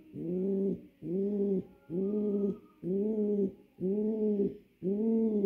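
Male pouter pigeon cooing over and over, about one coo a second, each a low call that rises and falls in pitch: the cock calling his hen to mate.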